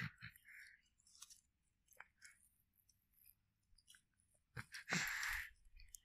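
Dry pieces of tree bark being picked up by hand from dry grass. A few faint clicks, then a short crunchy rustle about five seconds in.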